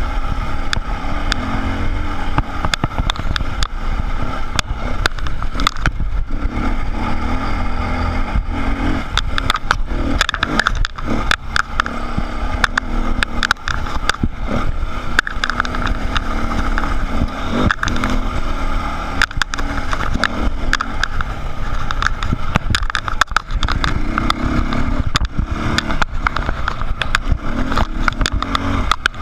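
Dirt bike engine running on a rough, rocky trail, its revs rising and falling with the throttle. Frequent sharp knocks and rattles from the bike jolting over rocks.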